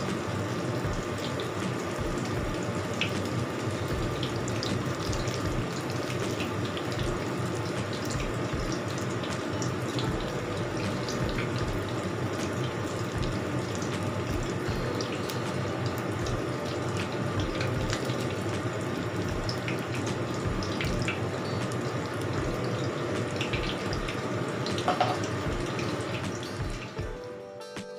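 Batter-coated vegetable fritters deep-frying in a wok of hot oil: a steady sizzle full of small pops and crackles, easing off slightly near the end.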